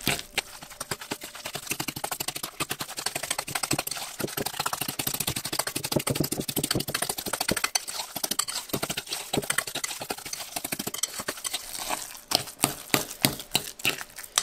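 A metal fork beats crumbled white cheese and eggs in a glass bowl, with rapid clicking and scraping of the fork against the glass. Near the end the clicks come fewer and louder.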